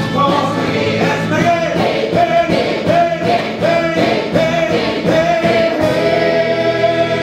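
Rock-musical number: several voices singing together over a band with a steady beat, ending on a long held note.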